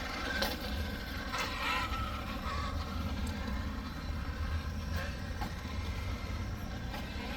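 Large 1/6-scale electric RC rock racer (Losi Super Rock Rey) driving over concrete: its motor whines up and down in pitch, over a steady low rumble and a few sharp knocks.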